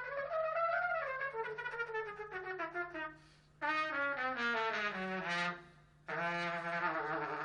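A brass instrument playing a slow ballad melody, a descending phrase followed by long held notes. It breaks off twice, about three seconds in and again near six seconds, and nothing else sounds in the gaps.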